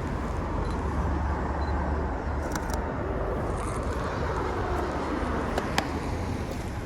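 Steady street traffic noise, with a sharp click about two and a half seconds in and two more near the end.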